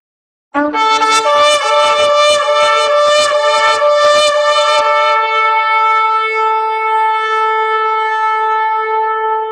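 A horn call, like a shofar or trumpet blast, enters abruptly about half a second in. It flutters in rapid pulses for about four seconds, then settles into one long held note.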